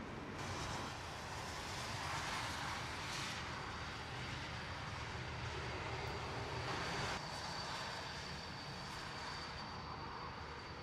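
Boeing 787-9's Rolls-Royce Trent 1000 turbofans running while the airliner taxis: a steady jet hiss, with a high steady whine that comes in about four seconds in.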